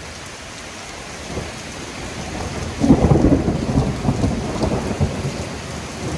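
Close thunder over a heavy downpour: steady rain hiss, a low rumble swelling from about a second in, then a sudden loud peal near three seconds that keeps rolling and rumbling.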